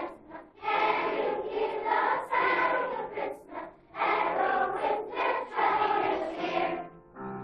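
Children's choir singing a festive Christmas song in phrases, with short breaks between phrases.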